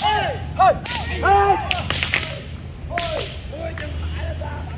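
Several long thin kung fu staffs swung fast through the air, each swing a whistling swish that rises and falls in pitch, overlapping from many students at once. A few sharp knocks are mixed in.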